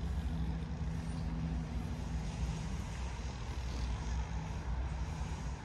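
Road traffic: a heavy vehicle's engine running with a steady low hum over general traffic noise, the hum easing about halfway through.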